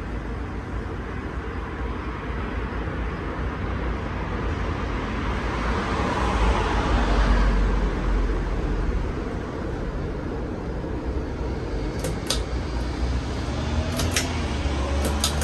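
Casablanca Lanai ceiling fan running on its newly replaced capacitor: a steady rush of air from the blades over a low motor hum, swelling louder around the middle. Near the end its pull-chain switch clicks several times in quick pairs as the chain is pulled.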